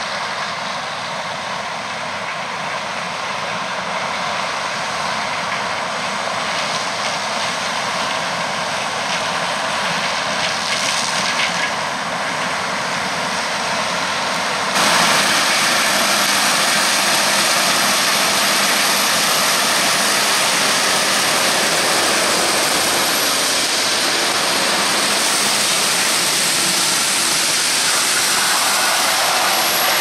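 Claas Lexion 770 combine harvester running while its unloading auger pours maize into a trailer beside a JCB Fastrac tractor: a steady machine drone with a faint high whine, stepping suddenly louder about halfway through.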